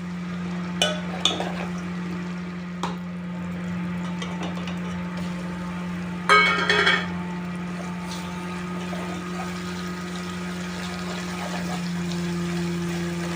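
Cooking in a pan: a metal spoon clinks against the pan a few times, with one louder ringing clatter about six seconds in. A steady low hum runs underneath.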